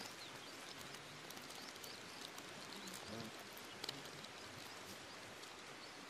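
Quiet woodland ambience: a steady hiss with faint high chirps and ticks, and a small click about four seconds in.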